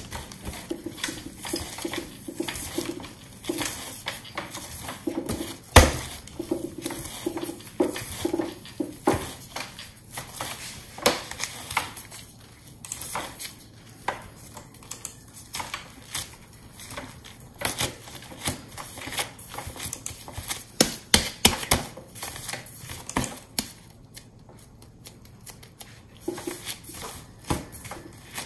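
Steamed-bun dough being kneaded by gloved hands on a wooden tabletop: irregular thuds, slaps and knocks as the dough is pressed and pushed against the board, with one sharper thump about six seconds in.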